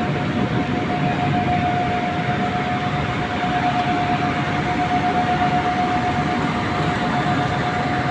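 Steel plant furnace running: a loud, steady industrial din with a constant high whine held at one pitch.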